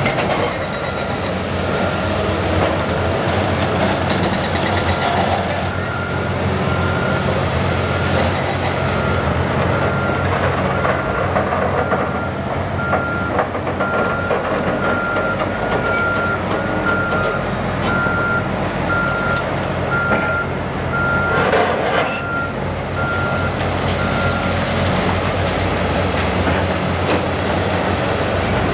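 Caterpillar excavators and a wheel loader running their diesel engines during concrete demolition, with the clatter of breaking concrete. A reverse warning alarm beeps at an even pace and stops a few seconds before the end.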